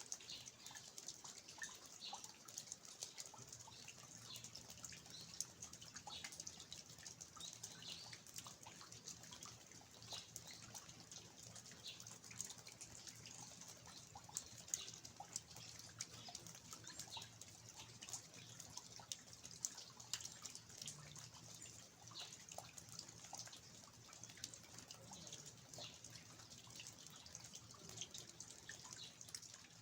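Faint rain falling in a garden, with water dripping from the eaves of an old house: a soft, even hiss scattered with many small drip clicks.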